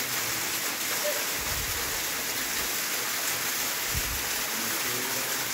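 Small waterfall splashing steadily into a rocky pool, a constant hiss of falling water. Two dull low thumps come about a second and a half in and again about four seconds in.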